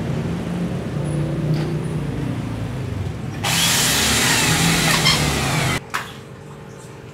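Electric hand drill boring a hole through an aluminium rack tube for a rivet. It runs for about two and a half seconds from about halfway in, then stops abruptly, with a click right after.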